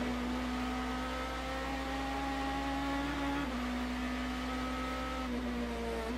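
BMW M3 GT race car's V8 engine heard from on board, pulling hard under acceleration: its pitch climbs steadily, drops at an upshift about three and a half seconds in, climbs again, then falls away near the end before a quick jump in pitch.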